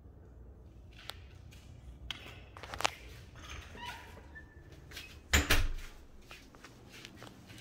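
Scattered knocks and rustling in a small room, with one loud thump about five and a half seconds in.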